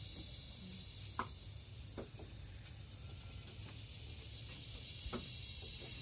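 Cicadas buzzing as a steady high hiss that thins in the middle and swells back near the end, with a low rumble underneath and a few faint clicks.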